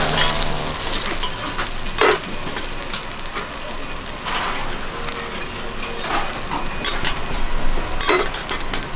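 Hamburg steak patty sizzling in oil on a flat steel teppan griddle, a steady hiss, with a few sharp metal clinks, one about two seconds in and several near the end.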